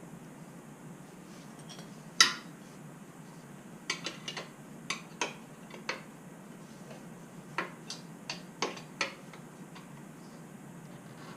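Metal hand tools and hardware clinking during motorcycle exhaust removal: one sharp clank about two seconds in, then a run of lighter clinks and clacks over the next five seconds.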